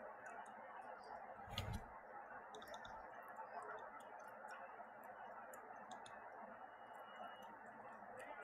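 Faint steady background hiss with scattered light clicks and one brief low thump about a second and a half in.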